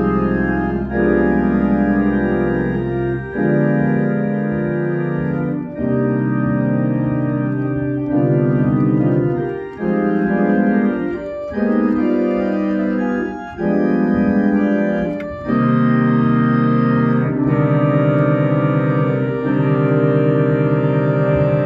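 Two-manual church organ playing an improvised fanfare: loud, sustained full chords that change every second or two. A deep pedal bass note sounds under the first few seconds, then drops out.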